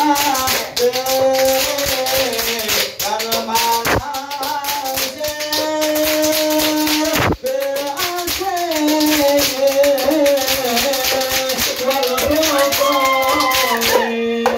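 Ishari hadrah: a group singing sholawat in unison over fast, rhythmic hand-clapping by standing rows of men and the beat of terbang frame drums, in the standing mahallul qiyam section. Near the end one note is held and the clapping stands out more clearly.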